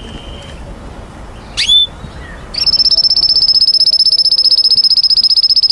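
Domestic canary singing. A short steady whistled note is followed by a sharp sweeping note about a second and a half in, then a loud, fast, high trill held for about three seconds.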